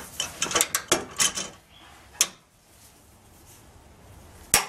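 Torque wrench being worked on a truck's frame bolt as it is torqued down to 250 foot-pounds: a run of metallic clicks and knocks in the first second and a half, one more about two seconds in, and a single sharp click near the end.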